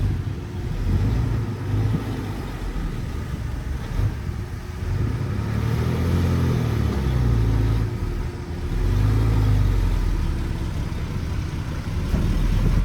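Diesel engine of heavy earthmoving equipment working under load, with a deep low rumble. It revs up and eases back down twice in the second half.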